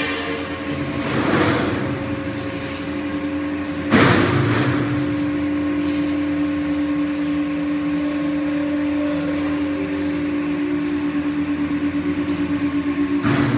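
Hydraulic power unit of a large scissor lift running with a steady hum as the lift raises two 1830 kg test weights. A sharp metallic clank comes about four seconds in, and there are a few short hisses.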